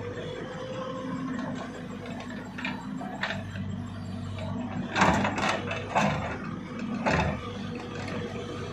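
JCB tracked excavator's diesel engine running steadily, with several loud knocks and scrapes about five to seven seconds in as the bucket digs into the soil.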